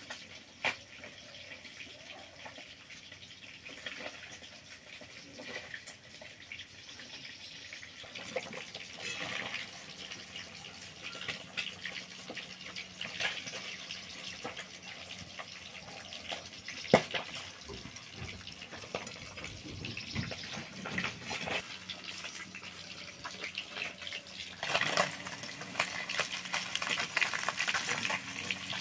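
Faint hiss with scattered light knife clicks as green chillies are sliced by hand over steel plates. Near the end a louder sizzle of food frying in hot oil starts.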